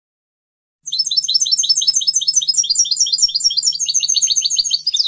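European goldfinch singing a fast, even run of high twittering notes, about eight a second. It starts about a second in and cuts off abruptly at the end.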